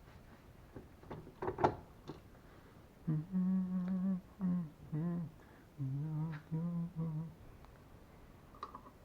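A few light clicks and one sharp clack about a second and a half in. Then a person hums a short tune in several held notes for about four seconds.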